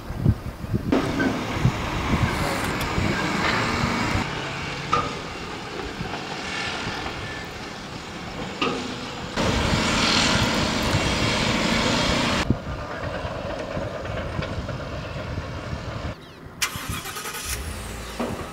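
Road noise inside a moving car: tyre and engine rumble with wind hiss. The level and tone jump abruptly several times.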